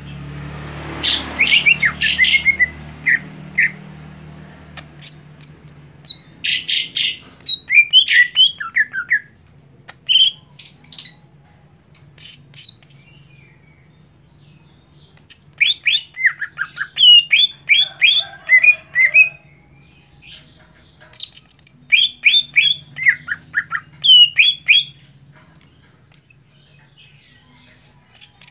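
Male greater green leafbird (cucak hijau) singing: bursts of quick chirps and whistled notes, in phrases broken by short pauses, over a faint low hum.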